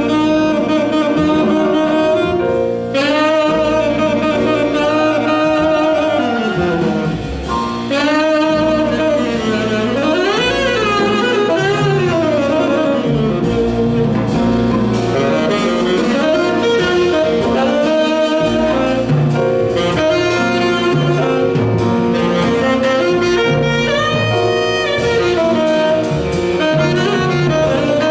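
Tenor saxophone playing a jazz solo of moving lines with quick runs up and down, over double bass and drums.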